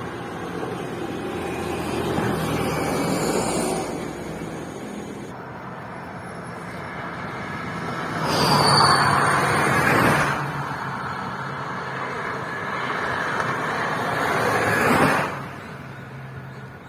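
Vehicles passing along a road one after another: three passes swell and fade, the loudest about eight to ten seconds in, with a brief high tone during it.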